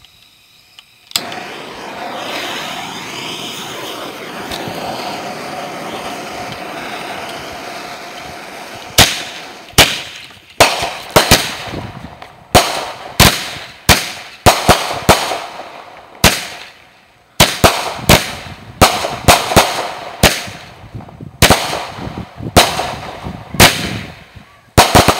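Consumer firework cake going off: after about a second, a steady hiss for about eight seconds, then a string of about two dozen sharp bangs, roughly one and a half a second, as its shots go up and burst overhead.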